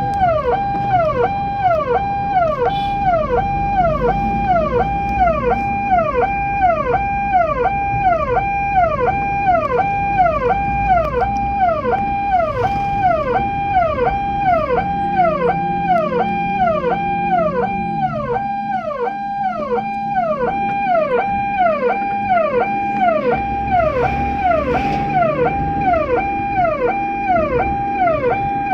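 Ambulance's electronic siren sounding continuously in a fast repeating cycle: a held high note that drops sharply, over and over.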